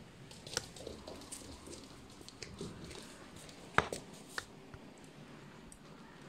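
Scattered light taps and clicks from a puppy playing with a rubber ball on a hardwood floor, with one sharp knock about four seconds in.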